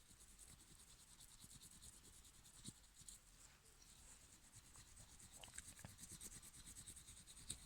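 Faint, quick rubbing strokes on a Hot Wheels '15 Dodge Charger SRT die-cast body as its stubborn decals are scrubbed off.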